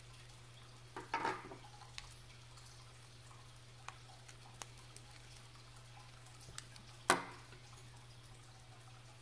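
Small metal clicks and taps of a precision screwdriver and tweezers against a steel watch case back and expansion band. A cluster of clicks comes about a second in, scattered single ticks follow, and the sharpest click comes about seven seconds in.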